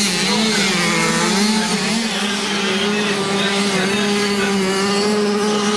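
Motocross bike engines running on the track: a steady engine drone whose pitch wavers up and down in the first couple of seconds as the bikes rev.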